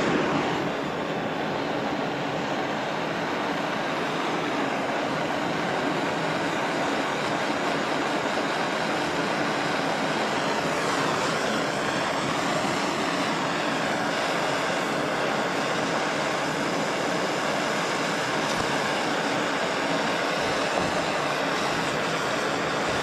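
Handheld gas torch burning with a steady hiss, its flame heating a corroded, seized pedal-cluster shaft to free it.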